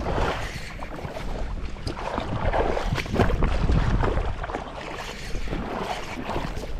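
Wind rumbling on the microphone, with irregular splashing of water from wading through shallows.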